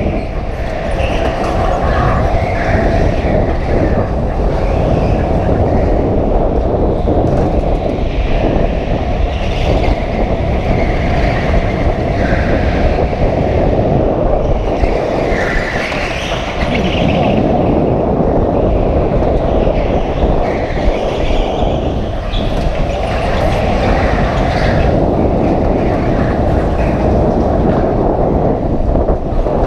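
Go-kart running at racing speed, heard from on board: continuous engine and tyre noise that swells and eases through the corners.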